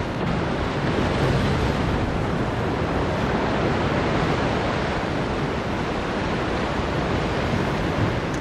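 Boeing 777-300 airliner's jet engines giving a steady rushing roar as it rolls out along the runway after landing.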